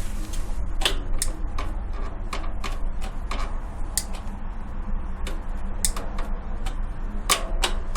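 Bicycle pedal clicking as it is pedalled: sharp, irregular ticks about once or twice a second over a steady low rumble. The clicking comes from a faulty pedal.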